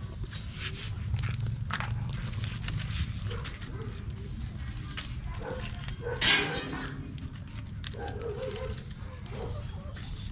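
Rural outdoor sounds over a low steady rumble: repeated short, high, rising chirps, and a louder animal call about six seconds in.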